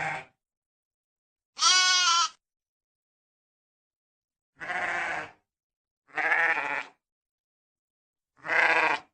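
Sheep bleating: a series of short separate bleats, each under a second long, with silence between them.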